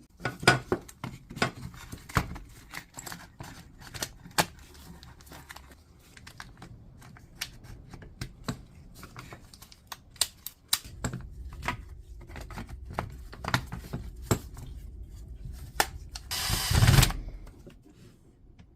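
Small plastic and metal clicks and knocks as a Makita BHP452 drill, its new armature just fitted, is handled and reassembled. Near the end the drill's motor runs in a short burst of about a second.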